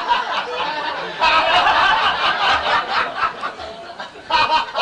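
An audience laughing and chuckling, with a fresh, louder wave of laughter about a second in.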